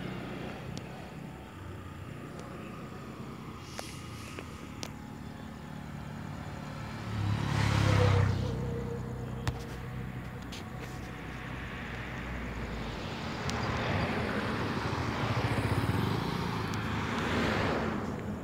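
Road traffic passing on a highway bypass: one vehicle goes by close about eight seconds in, its engine rumble and tyre noise swelling and fading quickly, and another builds up and passes more slowly over the last five seconds.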